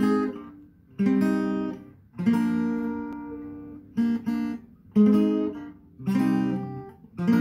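Acoustic guitar played in separate strummed chords, each struck sharply and left to ring and fade, about one a second, with two quick strums close together about four seconds in.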